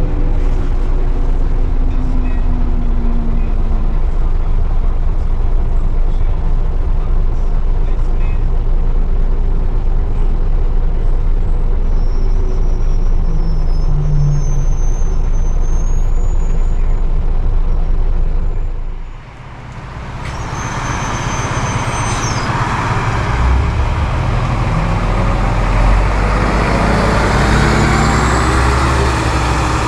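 Scania L94UB bus running, heard from inside the cabin, with a high whine that rises in pitch around the middle. About two thirds of the way through the sound changes to the same bus heard from the kerb, its engine running loudly as it pulls away from the stop.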